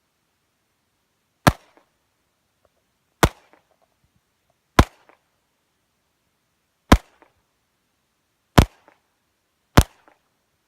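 Handgun firing six single shots at an unhurried pace, one to two seconds apart, each with a short echo.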